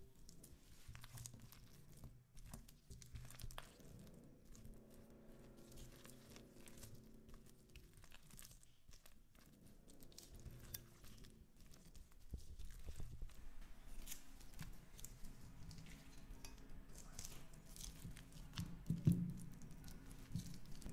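Silicone spatula stirring halved cherries through a wet mix of crushed biscuits and yogurt in a glass bowl: faint crunching, squishing and scraping, busier in the second half, with one louder knock near the end as the mixture goes into a ceramic dish.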